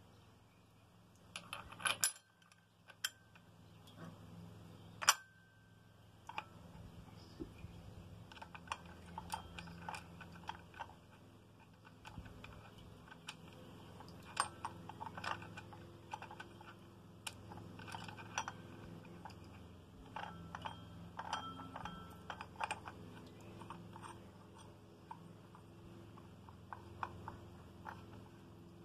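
Small metal clicks and clinks from the blade-mounting parts of a STIHL FS 490 C-EM brushcutter being fitted by hand: the metal thrust collar is seated over the three-tooth steel blade and turned on the drive shaft. A few louder metallic knocks come in the first five seconds, followed by many light clicks.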